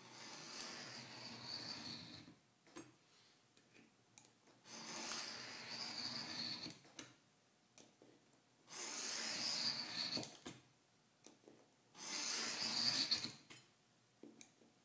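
Scoring knife drawn along a steel straightedge across .025-inch aluminum sheet: four scraping strokes of about two seconds each with short pauses between, repeated passes that deepen the score line for cutting out the part.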